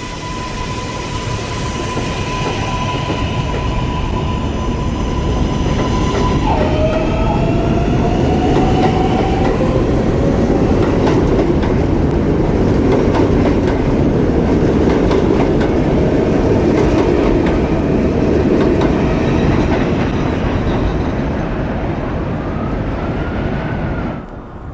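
R143 subway train on the L line running past, its traction motors whining on a steady tone that drops suddenly in pitch and then rises as it gathers speed. The wheels clatter over the rail joints, growing louder toward the middle, and the sound cuts off suddenly near the end.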